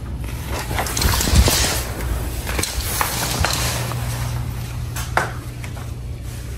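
A steady low hum with scattered clicks and knocks over it.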